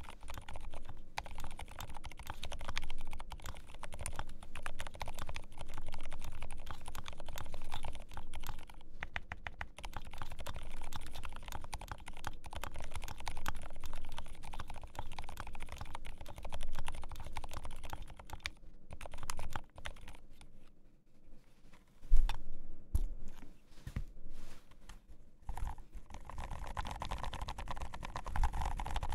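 Continuous fast typing on a GMMK Pro mechanical keyboard with Healios linear switches lubed with Tribosys 3204 and PBT keycaps: a dense patter of key clicks that thins out briefly about two-thirds of the way through. A single sharp knock, the loudest sound, comes about 22 seconds in.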